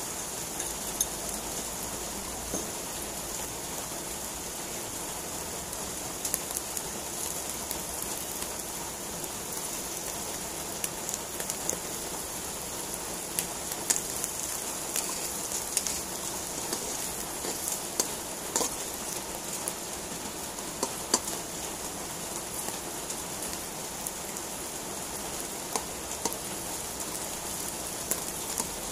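Button mushrooms frying in hot oil in a nonstick wok, stirred with a spatula: a steady high sizzle dotted with scattered sharp pops and clicks.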